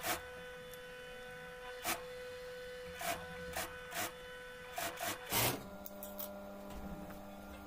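Industrial sewing machine stitching binding tape onto a corduroy cap in short, uneven bursts with sharp clicks over a steady hum. The stitching stops about five and a half seconds in.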